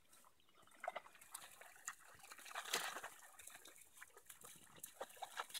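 African wild dogs drinking at a waterhole: faint, scattered lapping and splashing, with short clicks and a brief louder splash a little under three seconds in.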